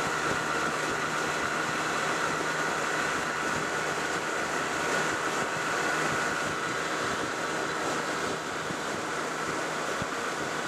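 Boat motor running steadily under way, a constant whine over a rushing noise.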